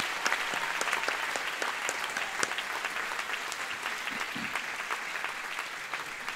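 Audience applauding with dense, steady clapping that slowly dies down.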